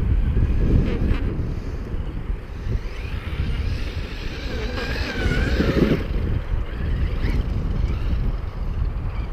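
Wind buffeting the microphone, with the high whine of a Traxxas X-Maxx RC truck's brushless electric motor rising and falling with the throttle as it drives through snow, clearest around the middle.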